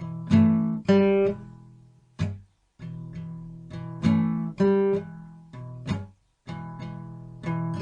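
Background music: acoustic guitar playing picked and strummed chords, broken by two brief silent gaps.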